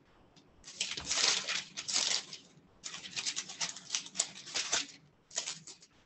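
Paper Bible pages being leafed through: thin pages rustling and crinkling in three bursts.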